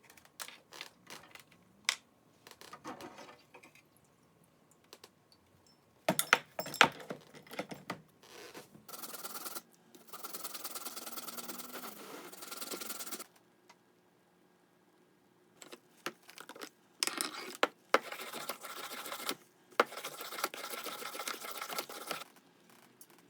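Old cast iron pipe wrench being washed of loosened rust after electrolysis: knocks and clinks of the metal wrench, and two stretches of steady rushing noise from running water and scrubbing.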